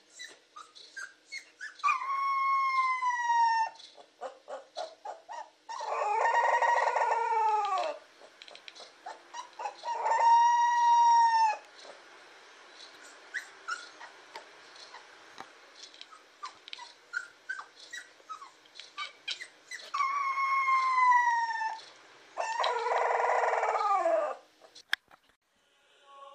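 Husky puppy howling and 'talking' in five long, Chewbacca-like calls that sag in pitch at the end, two of them rough and growly, with small squeaks and clicks in between.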